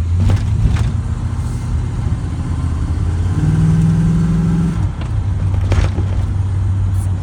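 Heavy pickup truck driving, its engine and road noise heard from inside the cab as a steady low drone. Partway through, the engine note grows stronger for about a second and a half, and a few short knocks or rattles come through.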